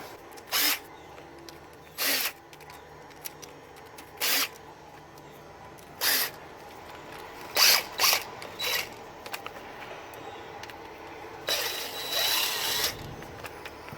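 Cordless drill spinning out transmission pan bolts in short bursts, several a second or two apart, then a longer run of over a second near the end.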